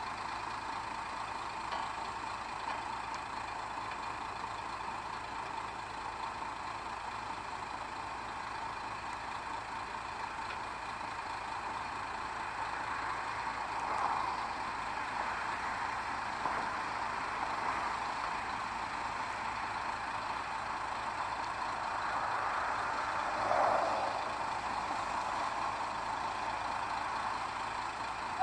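Diesel railcar running along the line, a steady engine and wheel noise with a brief swell about halfway through and another near the end.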